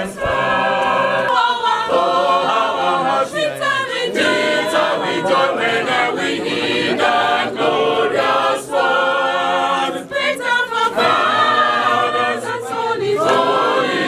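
A crowd singing a hymn together, unaccompanied, in many voices.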